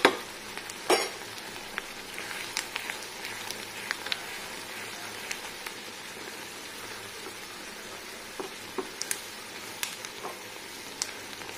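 Pan of sago in sugar syrup boiling hard on high heat: a steady bubbling sizzle with many small pops. A short knock about a second in.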